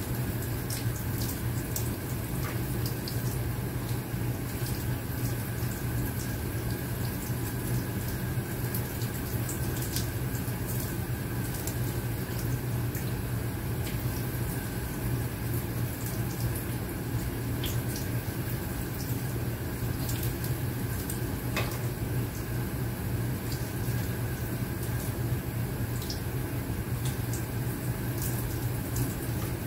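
Kitchen faucet running a steady stream of cold water into a sink of greens, with a steady low hum beneath it. Faint scattered clicks and rustles come from leaves being handled and stripped from their stems under the water.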